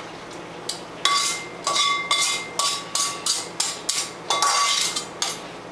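Metal tongs knocking and scraping against a frying pan over a stainless steel colander as a soupy chicken filling is emptied into the strainer: about a dozen quick metallic clinks over four seconds, starting about a second in, each ringing briefly.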